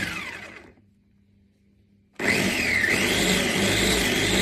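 Gaabor 2L electric meat grinder/food processor motor run in pulses: it winds down with a falling whine and stops within the first second, then after a pause of over a second starts again abruptly and runs with a whining pitch that rises and falls.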